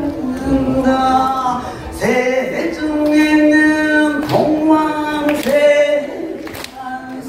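A woman singing solo and unaccompanied into a microphone, amplified over loudspeakers, holding long sustained notes one after another.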